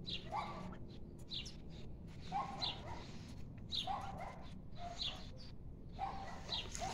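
A faint animal call repeated steadily, one short call about every second and a half, over a low background hum.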